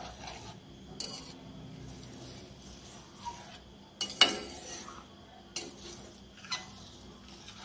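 Metal spatula stirring thick moong dal with moringa drumstick pieces in a large steel pot, knocking and scraping against the pot: a handful of sharp clinks, the loudest a pair about four seconds in.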